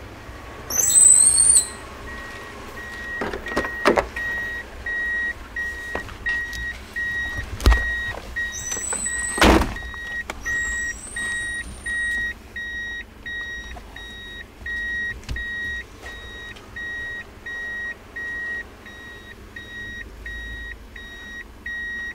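A car's electronic warning chime beeps steadily, about two high beeps a second. Over it come a few sharp knocks and thumps and short high squeaks in the first half. The loudest sound is a high squeal about a second in.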